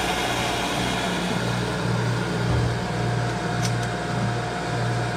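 Waste-oil centrifuge running at speed while it cleans used motor oil: its electric motor gives a steady low hum that swells and fades in a regular throb about three times every two seconds, over a faint steady higher whine.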